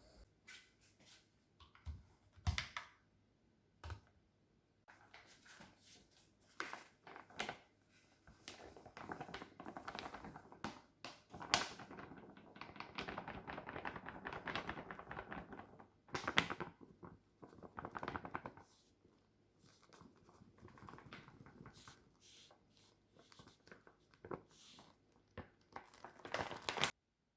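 Light knocks, taps and clicks of hand-handled objects in a small room, with denser stretches of scraping or rustling in the middle. The sharpest knocks come about halfway through, about sixteen seconds in, and just before the end.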